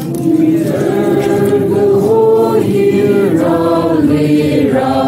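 A choir of many voices singing together, holding notes that change pitch every second or so.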